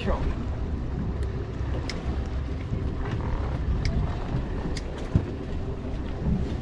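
Steady low rumble of a boat at sea, with wind on the microphone and a few light clicks from handling the fishing rod and reel.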